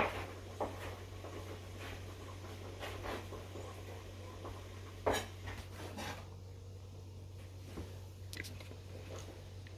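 Quiet kitchen room tone: a steady low hum with a sharp click at the start and a few faint scattered clicks and knocks.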